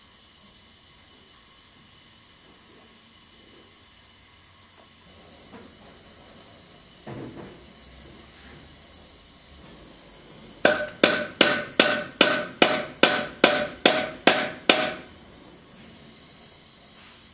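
Small hammer striking the torch-heated tang end on a sword pommel eleven times in quick succession, about two and a half blows a second, each blow ringing metallically; the strikes peen the tang over to rivet the pommel in place. An oxy-fuel gas torch hisses steadily underneath.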